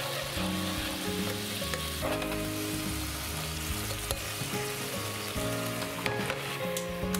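Soy sauce and sugar sauce sizzling at a rapid boil in a nonstick frying pan, stirred with a metal spoon, with a few sharp clicks near the end.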